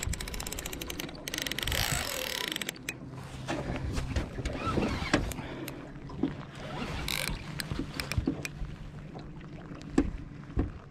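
Fishing rod and reel in use while a big striped bass is on the line: a quick run of reel clicks at the start, then scattered sharp knocks and clatter on the boat, with two brief rushes of hiss.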